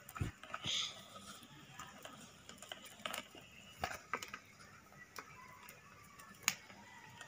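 Plastic basket-weaving wire handled and pulled through knots: irregular light clicks and rustles, with one sharper click about six and a half seconds in.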